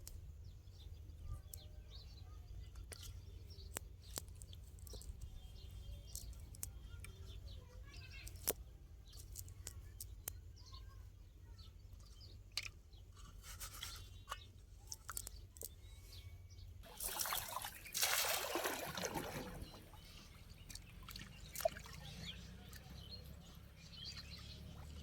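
Water trickling and splashing with scattered clicks and faint bird chirps. A louder rush of noise comes about 17 seconds in, lasts about two seconds and sinks lower as it fades.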